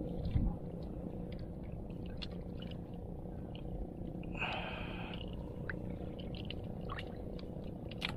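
Small clicks and taps of hands working a hook and metal jig out of a caught fish, with a short thump just after the start and a brief rustling hiss about four and a half seconds in. Under it runs a steady low rumble with a faint hum.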